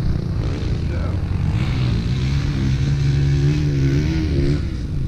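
Motocross bikes' engines running while stopped, under a low rumble, with a held, slightly wavering tone from about two seconds in to about four and a half seconds in.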